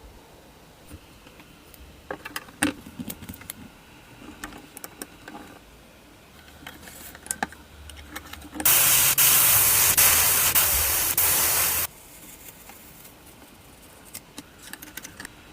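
Scattered light clicks and knocks, then a loud steady hiss, like air or spray under pressure, that starts suddenly about nine seconds in and cuts off about three seconds later.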